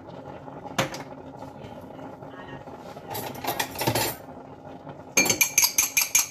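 A metal utensil beating egg yolk in a small bowl: a fast, even run of ringing clinks, about six or seven strokes a second, starting about five seconds in. Before it, a single knock and some brief kitchen clatter.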